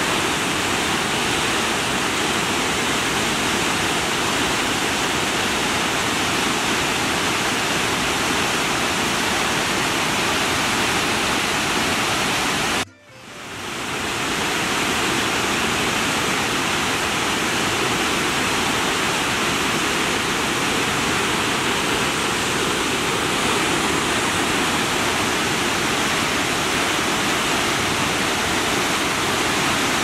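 Steady rushing of a tall waterfall, many streams of water pouring down a rock cliff. The sound cuts out for a moment a little before halfway through, then fades back in.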